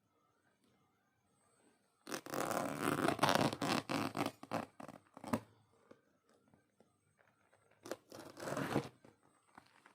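Packaging being torn open by hand: a crackling rip lasting about three seconds, starting about two seconds in, then a second, shorter rip about a second long near the end.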